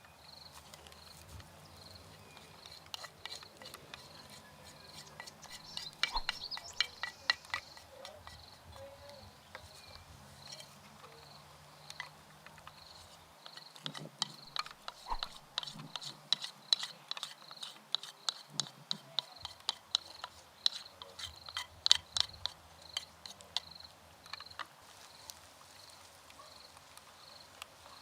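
A cricket chirping steadily, about three high chirps every two seconds, with bursts of sharp clicks and knocks about six seconds in and again from about fourteen to twenty-three seconds in.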